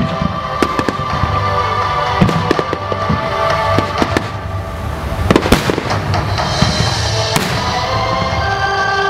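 Fireworks going off: a string of sharp bangs and crackles, the loudest about five and a half seconds in, over steady music playing alongside the display.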